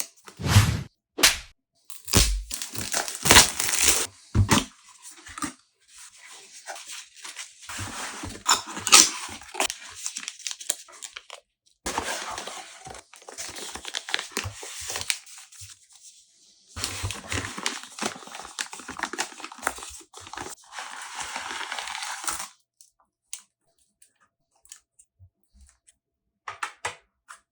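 Packaging of a DJI Flip drone being opened by hand: cardboard and plastic wrap tearing and crinkling in stretches, with sharp clicks and knocks of handling in between.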